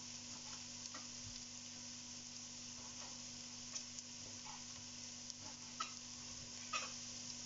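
Faint, steady sizzle of a pan of vegetables sautéing on the hob. A few soft knife taps on a plastic cutting board come through as monkfish is cut into small cubes.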